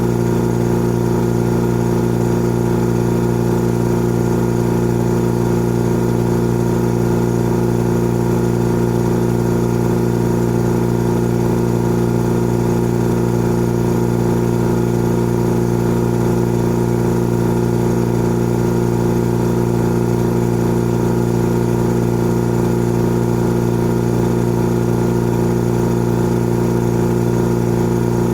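Old air compressor running steadily, a constant mechanical hum with no change in pitch or level.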